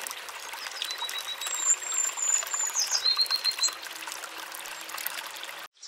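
Water trickling and splashing at the bottom of a hand-dug well as a digger works in the muddy water, with many small irregular splashes and clicks. A few thin, high whistled notes sound over it, like a bird, in the first half.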